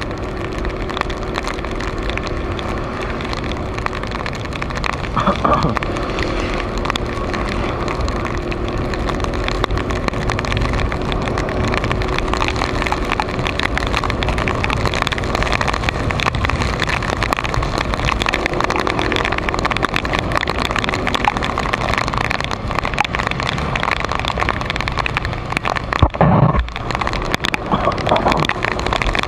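Honda PCX150 scooter's single-cylinder engine running while riding on a wet road, with steady tyre and wind noise and a steady hum. A short loud thump near the end.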